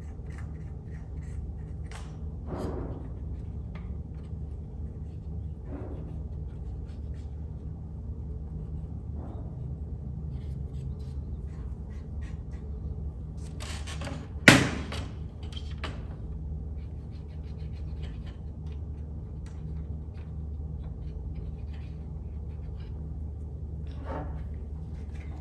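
Faint rubbing and small clicks from handling and cleaning the plastic case of a Commodore 1541 disk drive, over a steady low hum, with one sharp knock about halfway through.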